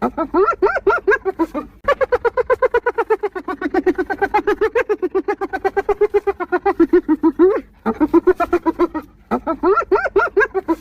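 Spotted hyena giggling: long runs of rapid, high-pitched, evenly repeated hee-hee notes, about eight a second, broken by three brief pauses.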